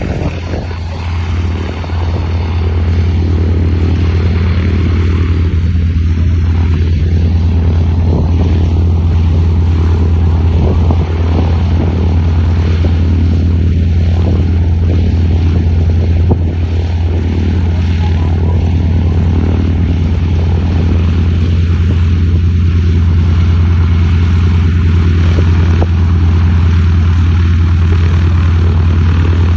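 Piston engine of a vintage American military propeller plane running loudly at a steady speed, a deep even drone. It grows louder over the first two seconds, then holds.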